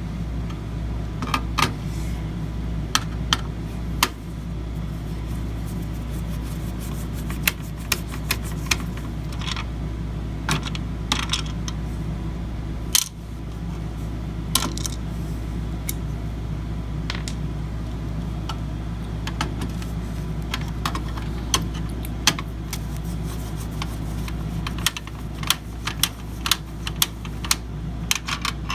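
Scattered sharp clicks and light clinks of small plastic and metal computer parts being handled as a CPU heat sink retention bracket is taken off and replaced. A steady low hum runs underneath.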